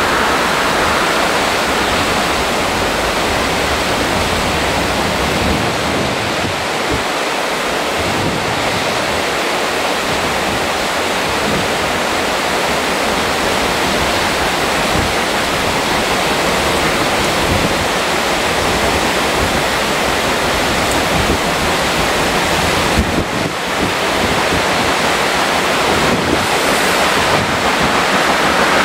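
Steady wind rushing and buffeting the microphone, an even noise with rough low rumbling.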